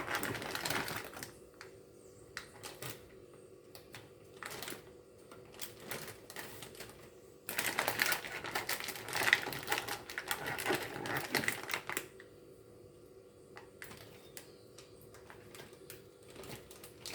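Plastic zip-lock bags being handled and filled with cut beetroot: crinkling with irregular small clicks and knocks, busiest in the middle.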